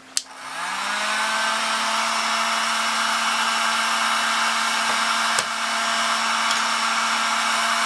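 Heat gun switched on with a click, its fan motor rising in pitch over about a second, then running steadily with a hum and a rush of air. A single brief click comes about five seconds in.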